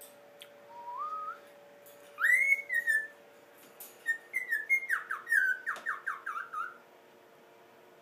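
Cockatiel whistling: a short rising whistle, then a louder high whistle, then a quick run of short, falling whistled notes.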